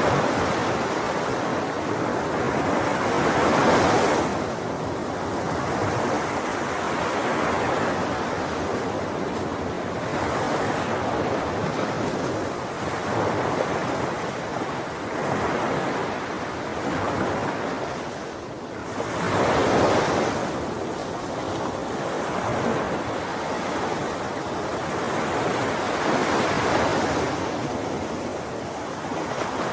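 Sea waves breaking on a shore: a continuous wash of surf that swells and recedes every few seconds, with stronger breakers about four seconds in and again around twenty seconds.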